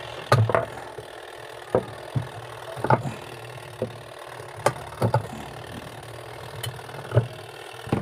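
Pliers clicking and scraping on the plastic centre cap of a single-tub washing machine's pulsator as it is twisted: about a dozen sharp, irregular clicks over a steady low hum. The pulsator is stuck fast, reportedly fixed in place with epoxy.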